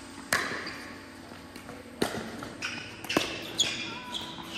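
Pickleball rally: four sharp pops of paddles striking the plastic ball, the first the loudest, echoing in a large hall, with short high sneaker squeaks on the court between the later hits.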